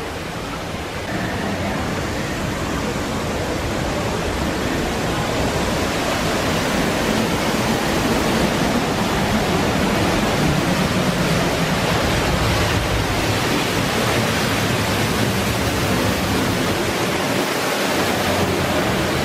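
Steady rush of falling water from a waterfall, a loud even hiss that swells a little about a second in and then holds.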